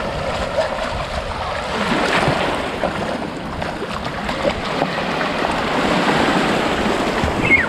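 Shallow ocean surf washing in over the sand, with wind buffeting the microphone and children splashing as they wade through the water.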